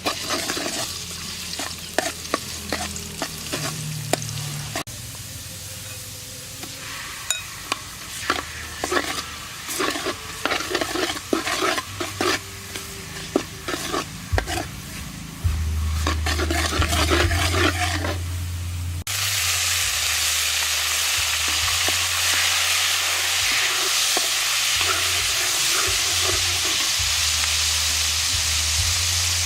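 Sharp knocks and clicks of kitchen work, then about two-thirds in a loud, steady sizzle starts suddenly as food begins frying in hot oil.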